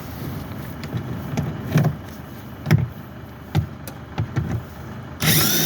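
Scattered clunks and knocks of hands and tools working in a car's engine bay, then a loud scraping rasp lasting under a second near the end.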